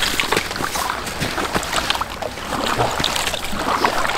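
Water splashing and sloshing around a kayak as it is paddled, in a dense, irregular run of small splashes.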